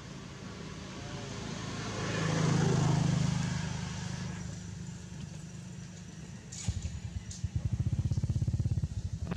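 Engine noise: a low hum that swells to its loudest about three seconds in and fades away, then a rapid, steady low putter of an engine running close by from about two-thirds of the way through.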